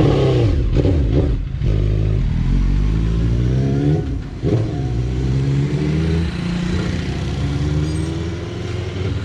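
Motorcycle engine being revved: its pitch climbs slowly, drops suddenly about four seconds in, climbs again and then eases back toward idle.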